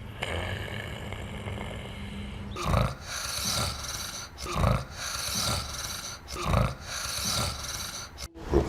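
Snoring respirations of an unconscious patient: a loud, rough snore on each breath, about every two seconds, the sign of a relaxed tongue partly blocking the upper airway. For the first two and a half seconds a steadier, noisy breathing sound comes before the snoring starts.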